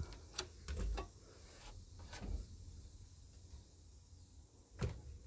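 A few short, light knocks and clicks from handling an RV refrigerator's door and its fittings while it stands open. The clearest come at the start, about a second in, and near the end.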